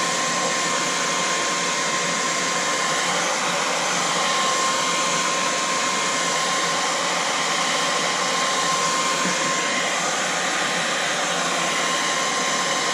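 Handheld hair dryer blowing steadily, a constant rush of air with a thin steady whine, held on a car emblem to heat and soften its adhesive.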